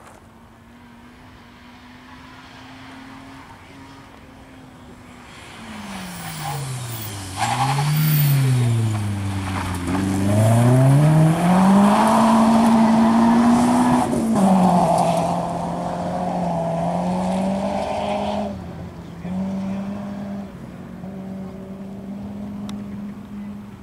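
Rally car coming in with its engine revs falling as it slows for a corner. It then accelerates hard, loudest about halfway, and pulls away through a couple of gear changes until it fades.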